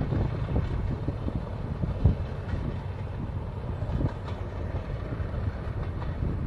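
Mainline diesel locomotive running under power as it draws its train away along the line, a steady low engine rumble with a few short sharper knocks.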